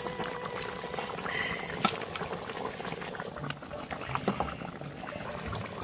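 A pot of braised beef hooves bubbling in its sauce: a steady bubbling with many small pops, and one sharper click about two seconds in.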